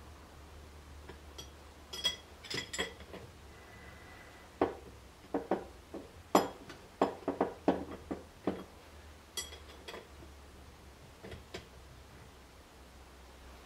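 Scattered sharp metallic clinks and knocks, about a dozen, most of them bunched in the middle: steel hand tools and small parts being handled on a workbench.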